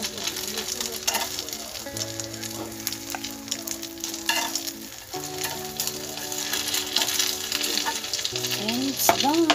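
Egg-coated slices of tikoy (sticky rice cake) sizzling in hot oil in a frying pan. Metal tongs click and scrape against the pan as the slices are turned. Held musical notes sound underneath.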